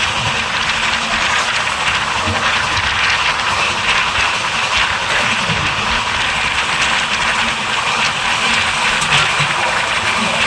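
Indian Railways express passenger train running, a steady, unbroken noise from the moving coaches on the track.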